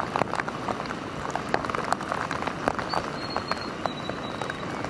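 Light rain pattering: irregular drop ticks over a steady hiss of drizzle, with a faint thin high whistle about three seconds in.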